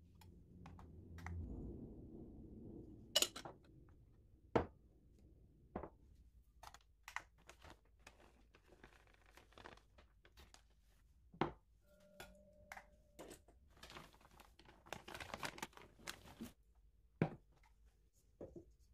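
Kitchen handling sounds: scattered light clicks and knocks of glass containers set on a digital scale and board, and the crinkling rustle of a plastic ingredient bag as almond flour is poured. There is a muffled rumble near the start and a longer rustle about two-thirds through.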